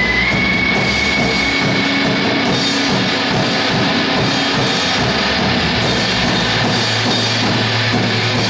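Live noise music from electronic gear and a keyboard: a dense, loud wall of distorted noise. A high whistling tone holds for the first two seconds, and a low hum comes in near the end.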